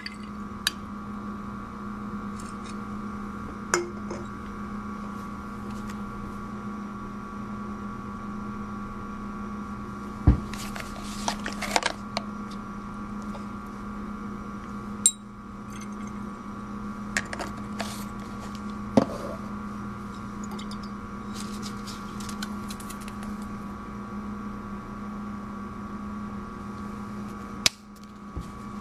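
Glassware and plastic reagent bottles handled on a lab bench: scattered clinks, taps and knocks of a glass Erlenmeyer flask and dropper bottle, a few louder knocks standing out. Under them runs a steady electrical hum.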